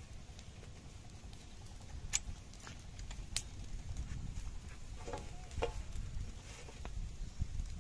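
Light clicks and taps of handling as roasted whole chickens are worked off a wooden stick and set down on a steel plate, over a low steady rumble.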